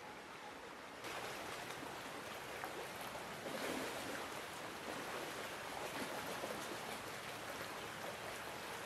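Shallow stream flowing over rocks, louder from about a second in.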